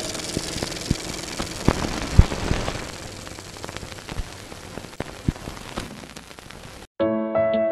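Static hiss with scattered crackles and sharp pops, fading gradually and then cutting off suddenly near the end. Soft instrumental music with steady held notes comes in straight after.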